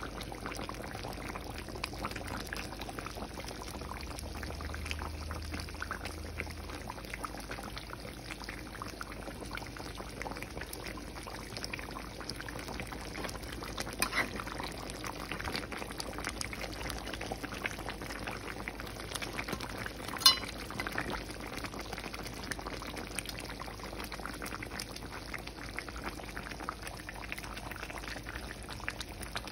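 Chicken curry bubbling steadily as it boils in a pan, a dense crackle of bursting bubbles. A sharp click sounds about halfway through, and a louder one about two-thirds of the way in.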